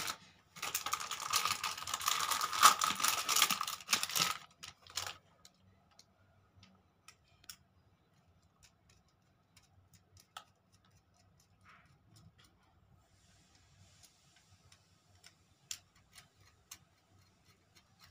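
A few seconds of loud rustling and handling noise, then small scattered clicks of a screwdriver working the terminal screws of a light switch held in the hand.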